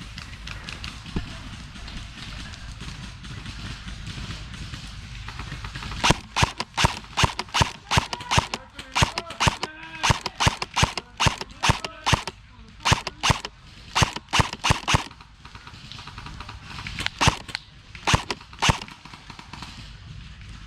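Airsoft guns firing, a quick irregular string of single sharp shots that starts about six seconds in and runs for around nine seconds, then a few more shots after a short pause.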